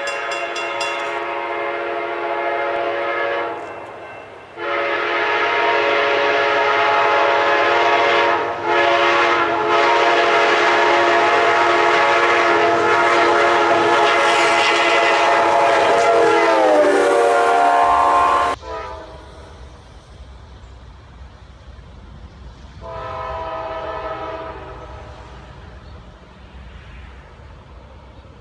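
Amtrak GE P42DC locomotive's multi-chime air horn sounding for a grade crossing: a blast of about four seconds, then a long blast with brief breaks whose pitch drops as the locomotive passes, cut off suddenly. Then a low rumble of the train going by, with a shorter, fainter horn blast.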